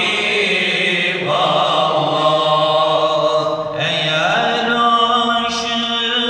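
A man's voice singing a Turkish ilahi (Sufi hymn) unaccompanied, amplified through a microphone. Long held notes are joined by rising slides, with a new phrase sweeping upward about a second in and again just past four seconds.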